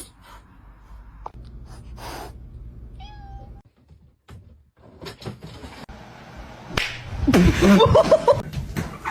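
Cat vocalizing: a short faint meow about three seconds in, then a louder, longer wavering cry near the end.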